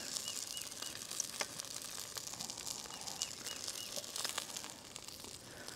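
A bird calling in short runs of three or four clear, evenly spaced notes, repeated twice, over the faint sizzle of food frying in a skillet. A couple of sharp clicks of a fork against the pan.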